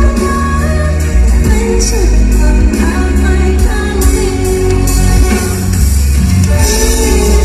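A woman singing a pop song over a band, with a strong bass line and steady drums.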